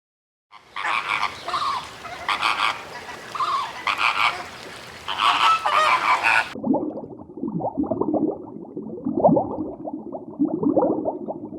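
Animal calls in two clips: a series of loud repeated calls from about half a second in, then a cut about six and a half seconds in to a different, lower-pitched run of repeated calls.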